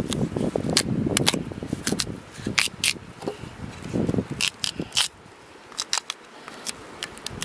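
A large knife cutting raw peeled daikon radish held in the hand: a scattered run of crisp snaps and crunches as the blade splits the firm root, with duller rustling knocks in the first second or so and again about four seconds in.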